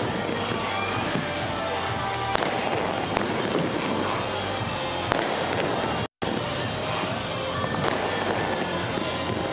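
Fireworks display bursting, with dense crackling and popping and sharp bangs, and music playing underneath. The sound drops out for a moment about six seconds in.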